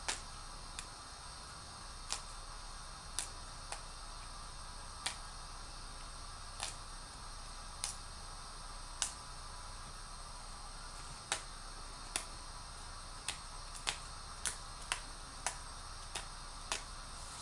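Lettuce leaves torn by hand into small pieces: crisp sharp snaps at irregular intervals, roughly one a second, over a steady faint hiss.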